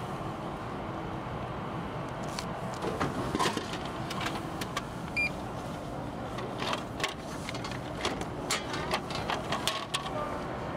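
Drinks vending machine at work: a short electronic beep about five seconds in, and scattered knocks and clicks as a plastic bottle drops into the tray and is pulled out through the dispensing flap, over a steady background of traffic noise.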